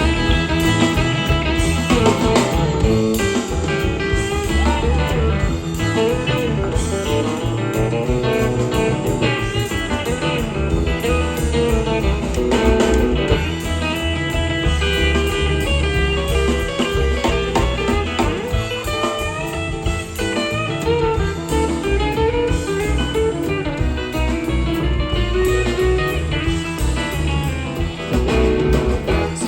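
Live blues band playing, led by an electric guitar solo with bending melodic lines over piano, drums and upright bass.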